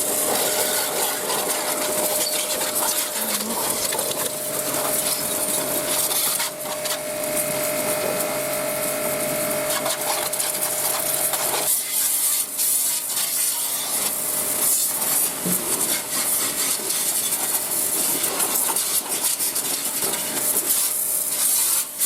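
A brush scrubbing the bare steel frame of a motorcycle in rapid rasping strokes, with a faint steady hum that stops about halfway through.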